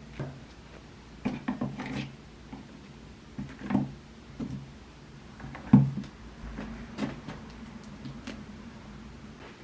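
Light knocks, taps and rustles of small objects being handled on a tabletop, the sharpest knock a little past the middle, over a faint low steady hum.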